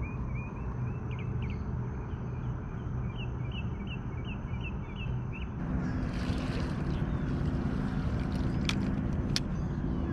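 Steady outdoor background hum with a small bird chirping over and over, about three chirps a second, through the first half. After a change in the background, two sharp clicks sound near the end.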